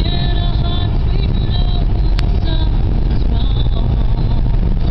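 Steady low road and engine rumble heard from inside a moving car's cabin, with a single sharp click about two seconds in.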